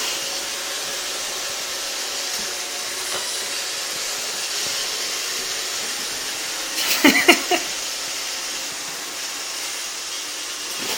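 Roomba robot vacuum running with a steady whirring hiss. About seven seconds in, a short loud voice sound cuts in over it.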